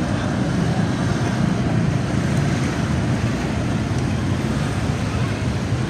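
Steady city traffic noise: an even din of many vehicles with no single event standing out.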